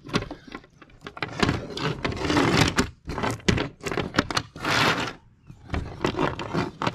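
Steel chainsaw chain clinking and rattling as its loops are lifted, shifted and dropped on table boards, in irregular bursts with short pauses between them.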